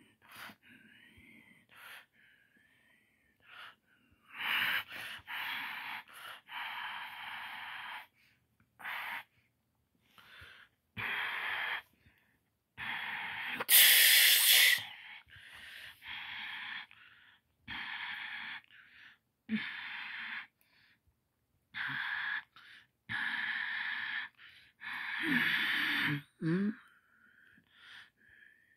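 A person's breathy huffs and hisses close to the microphone, coming in about twenty short separate bursts, with a loudest sharp hiss about halfway through and a brief voiced sound near the end.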